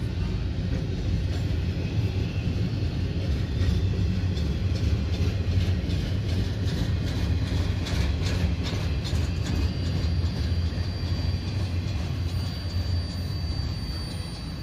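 Double-stack intermodal freight train's container well cars rolling past: a steady low rumble, with a run of sharp wheel clicks around the middle, easing off slightly near the end.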